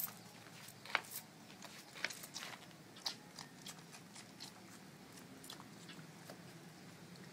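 Puppies suckling at their mother's teats: faint, irregular wet smacking and clicking, with a few sharper clicks in the first three seconds, then sparser and fainter.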